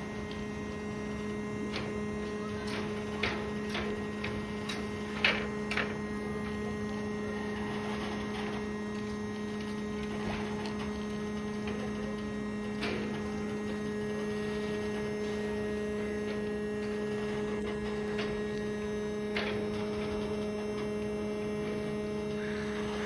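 A steady droning hum, one low tone with a second tone an octave above, with a handful of sharp clicks about three to six seconds in, the loudest a little past five seconds.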